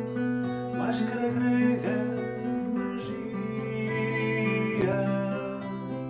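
Background music: guitar with a singing voice.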